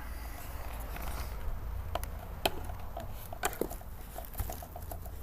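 Small clicks and taps of hands handling parts while fitting a brushless camera gimbal, over a steady low hum. The clicks are scattered, with a few sharper ones from about two seconds in.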